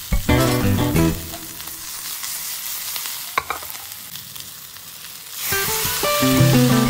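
Chicken and vegetables sizzling in a stainless steel pan during stir-frying, with a single sharp click about three and a half seconds in. The sizzle grows much louder about five and a half seconds in, as guitar background music comes back.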